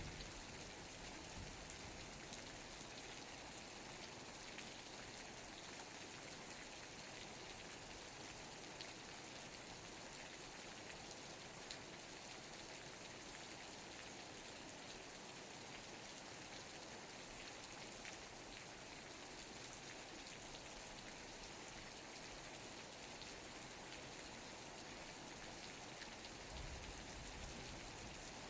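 Steady rainfall: an even hiss with scattered drop taps. A low rumble comes in near the end.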